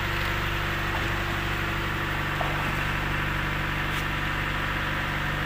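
An engine aboard a fishing boat running with a steady, even drone.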